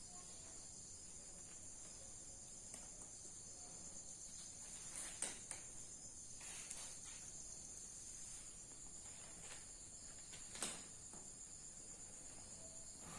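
Faint, steady high-pitched chirring of insects, likely crickets, with two brief soft knocks, one about five seconds in and one near ten seconds.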